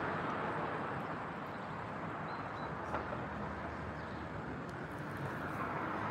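A steady low rumble of heavy vehicle engines running, with a faint click about three seconds in.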